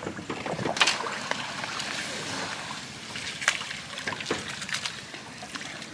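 Water splashing and trickling as a small wooden canoe is hauled along a fishing line by hand through water hyacinth, with a few sharp clicks.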